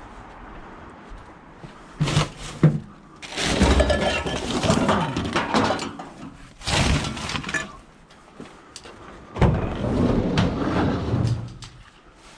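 Knocks followed by bouts of rattling clatter as scrap items are handled and moved: two sharp knocks about two seconds in, then three stretches of clatter of a few seconds each.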